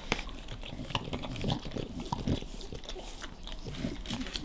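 Bulldogs chewing on bones: irregular gnawing and crunching clicks, with teeth scraping on the bone.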